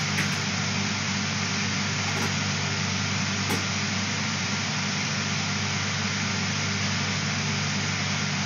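Automatic shot blasting line for steel bars and rebar running: a steady machine noise of motor hum under an even hiss.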